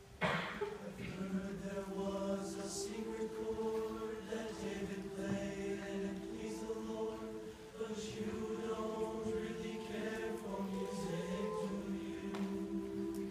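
Mixed concert choir singing together, coming in at once just after the start and holding long sustained chords.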